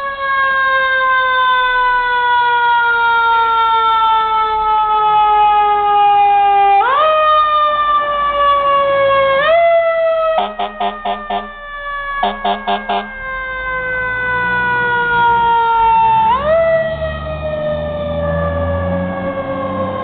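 A fire engine's siren rising quickly and falling slowly over several seconds, three times, the pattern of a mechanical siren wound up and left to coast down. Two runs of short, rapid horn blasts come about halfway through, and the truck's engine then grows louder as it pulls away.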